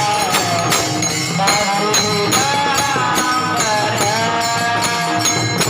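Kirtan devotional music: a high voice holds long notes that slide up and down, over a steady beat of jingling hand cymbals.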